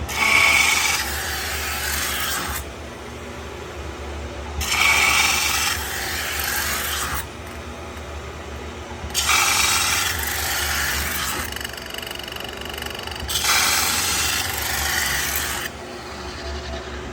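CNC metal spinning lathe working sheet metal, with a rasping rub in four passes of about two and a half seconds each. A steady machine hum runs underneath.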